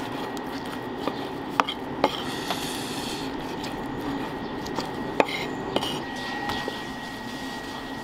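Kitchen knife slicing raw meat on a wooden cutting board, the blade knocking sharply on the board about five times, over steady background noise and a faint steady high tone.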